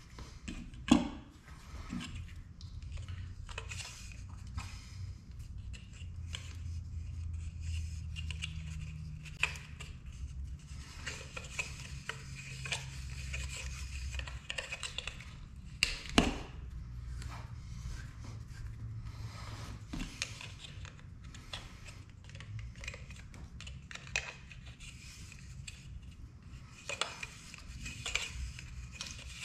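Hands handling brass plumbing fittings and wrapping them with PTFE thread-seal tape: rubbing and small metallic clinks throughout, with two sharper knocks, one about a second in and one around the middle.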